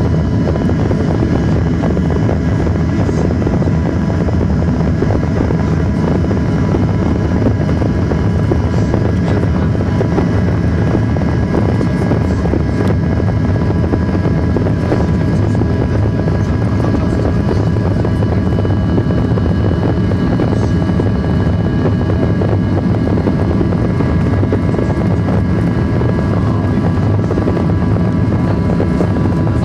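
Boeing 737-900ER engine and airflow noise heard from inside the passenger cabin: a loud, steady drone with a few faint, even whining tones over it.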